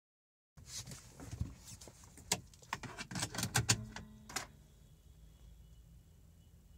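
Morimoto Elite H7 HID headlight setup misfiring: a run of irregular sharp clicks for about four seconds as it tries to strike, then only a faint steady high whine.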